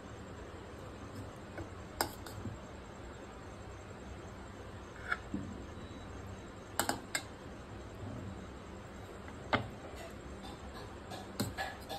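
A steel spoon clinking against a serving plate and a steel pot as syrup-soaked badusha are lifted across: a few short, sharp clinks at irregular intervals, two close together about seven seconds in and a cluster near the end, over a faint steady background hum.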